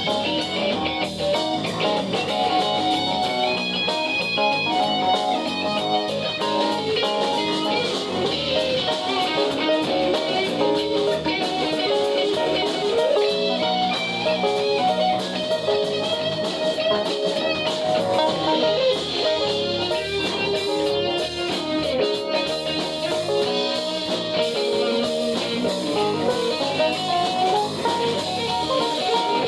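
Music: an electric guitar track in a blues style with drums.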